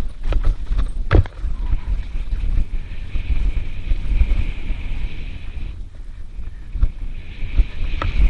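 Mountain bike running fast down a dirt trail: wind rumble on the microphone and tyre noise over the dirt, broken by sharp knocks and rattles as the bike hits bumps, the loudest about a second in. A steady high whir comes in about three seconds in, drops out briefly near six seconds and returns near the end.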